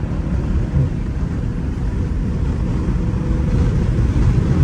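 Exhaust of a catless Dodge Scat Pack's 392 HEMI V8 running at low speed, heard from inside the cabin as a steady low rumble that grows slightly louder near the end.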